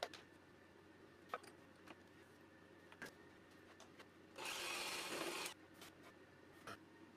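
Light knocks from handling the plywood jig, with one rubbing scrape about a second long near the middle, wood sliding against wood.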